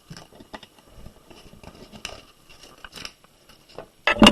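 Faint handling noises: scattered light clicks and rustles, with a louder knock near the end.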